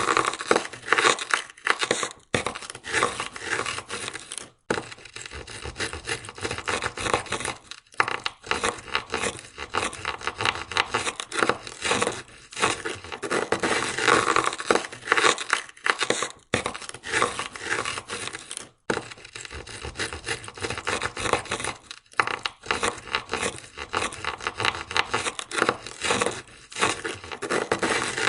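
Ice scraper scraping ice off a car window in quick, rough strokes, with brief pauses every few seconds.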